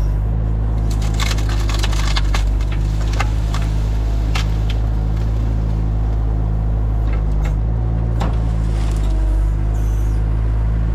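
An engine running steadily while wood cracks and splinters again and again, as branches of a fallen tree are broken or crushed.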